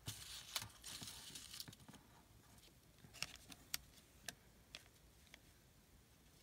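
Faint paper handling: a soft rustle of paper for the first second and a half, then scattered light taps and clicks as the paper piece and a small embellishment are pressed and shifted by hand.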